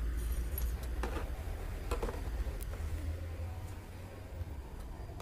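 Black plastic drill carrying case being handled and its lid opened, giving a few sharp clicks and knocks of plastic and the metal drill bits inside, over a low steady rumble.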